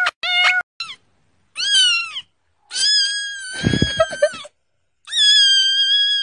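Cats meowing in a string of loud, high cries: a quick run of short mews in the first second, then three longer drawn-out meows. The middle meow has a rough, noisy edge, and the last is a long steady cry near the end.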